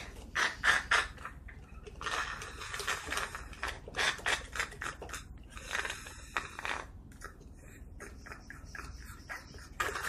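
Sucking and slurping through a thin plastic straw from a small plastic candy-toy container, in several short spells, with clicks and rattles of the plastic toy being handled in between.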